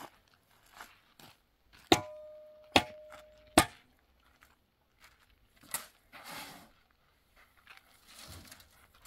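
Steel shovel clanging three times about a second apart, each strike ringing briefly. Then shovelfuls of sand are scooped and tossed with a gritty swish.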